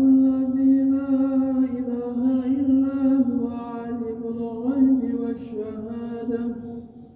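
A man's solo Quranic recitation, chanted aloud by the imam leading Friday prayer. One slow melodic phrase with long held notes and small turns runs nearly the whole time and fades out near the end.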